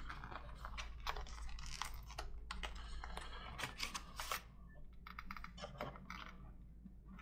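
Cardboard packaging and paper being handled: rustling, scraping and light clicks as a black cardboard box insert is opened and folded paper leaflets are slid out. The handling is busiest in the first half and quietens after about four seconds.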